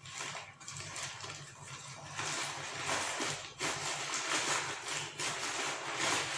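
Rustling and rubbing of a quilted faux-leather handbag being handled and held up close, getting louder about two seconds in.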